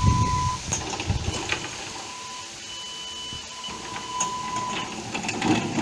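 Radio-controlled snowblower's drive whining at a steady high pitch in several short spells, with scattered clicks and a low rumble in the first second or so.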